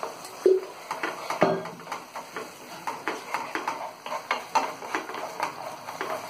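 Wooden spatula stirring and scraping a thick sauce in a nonstick frying pan: irregular light knocks and scrapes, several a second.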